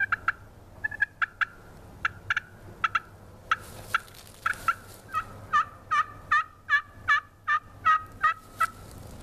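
Turkey call worked by hand to imitate a hen: a few sharp, scattered clucks, then a run of yelps at about two to three a second, each note dropping from a higher pitch to a lower one and growing louder toward the end.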